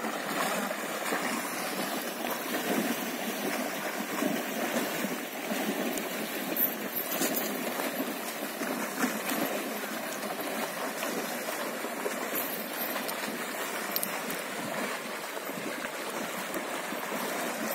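Several horses wading through a shallow river, with a steady sound of water sloshing and splashing around their legs.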